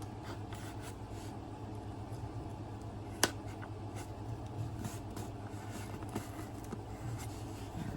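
Quiet handling of a cardboard package being opened, with faint ticks and one sharp click about three seconds in, over a steady low hum.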